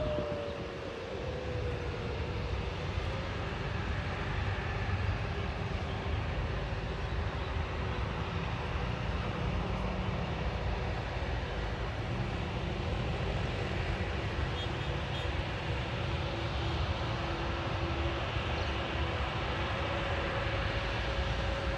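Airliner jet engines heard from a distance: a steady low rumble with a faint held tone, even in level throughout.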